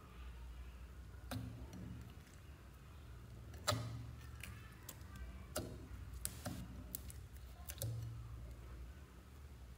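A bowl of soft, glossy slime being squeezed and folded by hand, trapped air popping out in a series of sharp clicks and squelches. The loudest pop comes a little under four seconds in, over a faint low hum.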